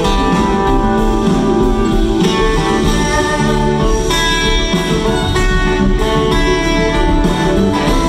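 Live jamgrass band in the middle of a jam: acoustic and electric guitars to the fore over upright bass, drums and keyboard, playing steadily. Recorded from the audience on a phone.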